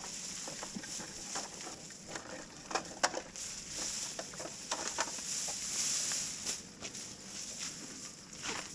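Scattered crunching and rustling clicks, with one sharp click about three seconds in, over a steady high hiss that swells briefly near the middle.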